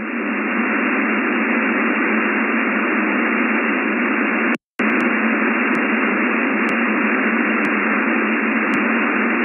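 Shortwave receiver on the 8843 kHz aeronautical HF single-sideband channel giving a steady hiss of band noise on the open channel between transmissions, with no voice coming through. About halfway it cuts out completely for a split second, then the hiss resumes.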